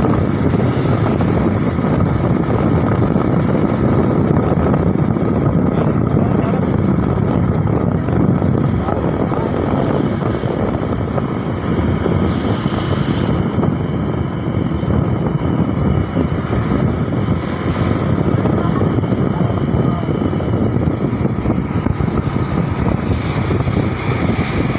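Truck driving at road speed: a steady drone of engine and tyre noise.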